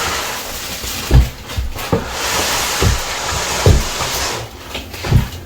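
Rustling and about five dull, low thumps: handling noise from the large TV's cardboard box and foam packaging being moved about.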